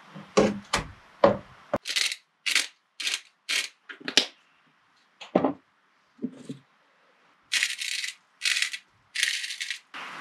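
Objects being handled: a few sharp knocks and clattering rattles, then a run of short scraping or rustling strokes about two a second, two duller thuds, and three longer rustles near the end.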